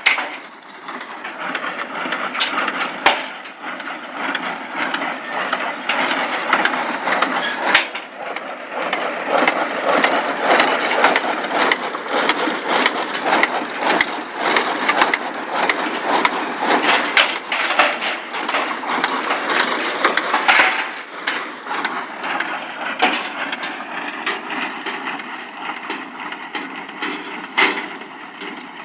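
Deutz-Fahr baler at work, a steady mechanical clatter with frequent sharp knocks, under the tractor's running engine.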